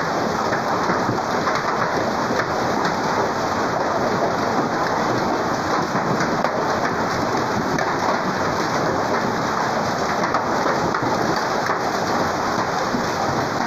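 Heavy hailstorm: rain and hailstones pelting down on the ground and roofs, a steady dense patter with no let-up.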